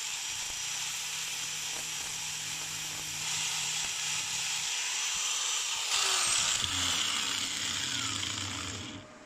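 Electric angle grinder grinding down a weld bead on a steel bolt: a steady, high-pitched grinding hiss that grows louder about three seconds in, then falls away and stops abruptly near the end.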